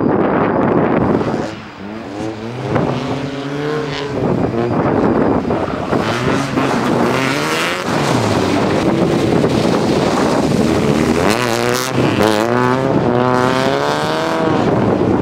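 Stock 1990 Mazda Miata's 1.6-litre four-cylinder engine revving up and down repeatedly as the car is slid around on wet tarmac, with wind on the microphone at the start.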